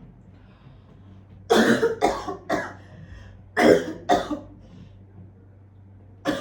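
A woman's staged coughing, part of a pretend coughing-up-blood act: three coughs in quick succession, two more about a second later, and another starting at the very end.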